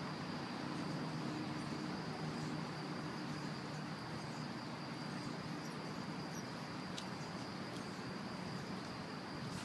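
Quiet outdoor background: a steady hiss with a continuous high-pitched whine and a faint low hum underneath. Two faint ticks come near the end.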